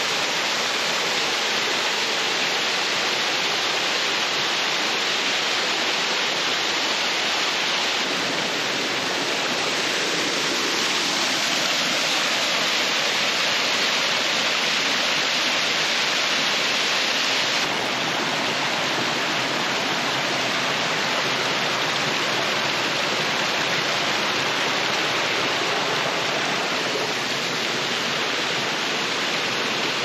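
Small waterfall pouring over rock ledges into a shallow rocky pool: a steady rush of falling water, running strong after heavy rain.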